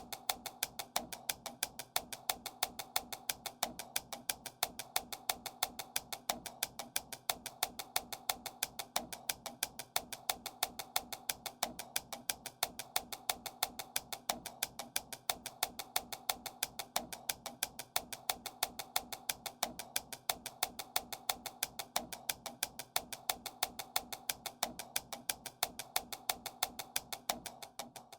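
Suspense percussion music for a heist scene: a rapid, even clicking beat like a wood block over steady held tones.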